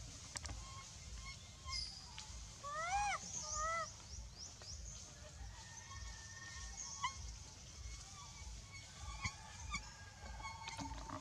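Young macaque crying: two wavering calls about three seconds in, the first longer, each rising and then falling in pitch. The crying of an infant separated from its mother and troop.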